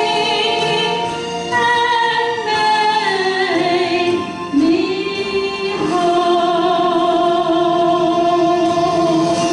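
A woman singing a solo song into a handheld microphone, ending on one long held note over the last few seconds.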